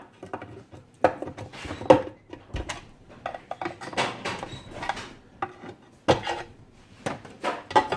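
Cast-aluminium NP208 transfer case and its metal parts being handled during teardown: an irregular run of knocks, clinks and scrapes of metal on metal, with sharper knocks about a second in, about two seconds in, and again near the end.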